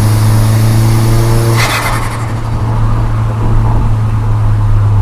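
Volkswagen Golf GTI Mk4's 1.8 20-valve turbo four-cylinder engine running steadily under throttle inside the car, then a short rushing burst of turbo flutter about one and a half seconds in as the throttle is lifted, with the engine droning on afterwards.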